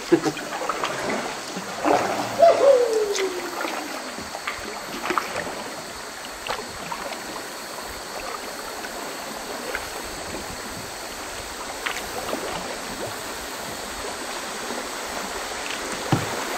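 Shallow river water rushing over a riffle around kayaks, with scattered paddle splashes and knocks. A short sound falling in pitch stands out about two and a half seconds in.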